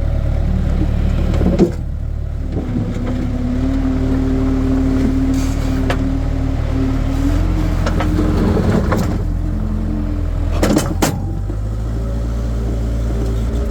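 Skid steer loader running steadily while working, with a few sharp knocks, the loudest about eleven seconds in.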